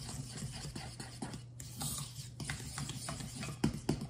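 A utensil stirring and scraping egg, sugar and vanilla together in a mixing bowl: an uneven run of scrapes and light taps, with a few sharper knocks against the bowl near the end.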